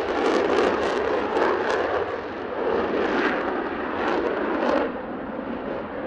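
Twin J79 turbojet engines of an F-4EJ Kai Phantom II running at takeoff power as it rolls down the runway and rotates. The roar has sharp crackling and eases slightly about five seconds in.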